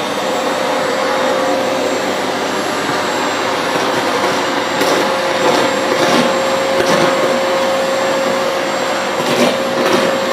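Panasonic MC-DL201 vacuum cleaner's 700 W motor running steadily at full speed with a constant whine, sucking up torn pieces of paper. From about five seconds in, several short clicks and rustles as pieces of paper are pulled up through the floor nozzle.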